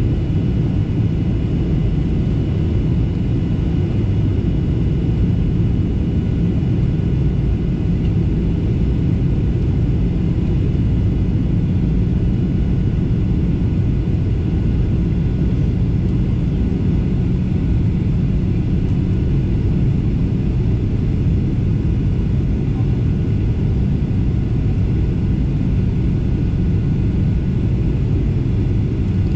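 Steady cabin noise of a Boeing 737-800 on approach: a constant low rumble of engine and airflow from its CFM56-7B engines, with a thin, faint steady whine above it.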